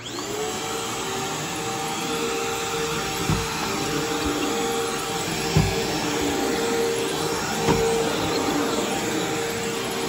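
Upright vacuum cleaner switched on, its motor spinning up in a moment and then running steadily as it is pushed over carpet. Three short knocks stand out over the hum along the way.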